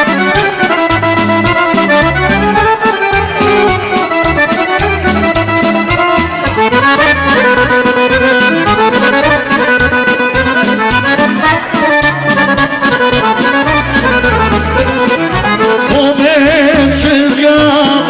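Live Serbian folk band playing an instrumental passage led by accordion, over a steady beat and bass line.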